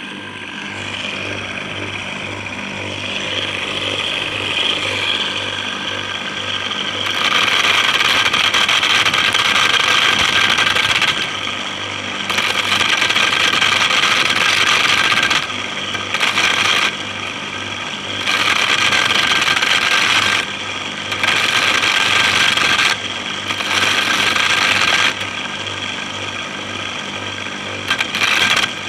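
Homemade corn sheller running: an electric motor hums steadily while dried corn cobs are pressed against its spinning stripping head. From about a quarter of the way in, loud spells of rattling and grinding, each a few seconds long, mark kernels being torn off one cob after another, with short breaks as cobs are changed.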